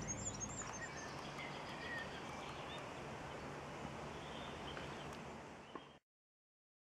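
Faint outdoor birdsong: scattered short chirps over a steady background hiss, fading out near the end.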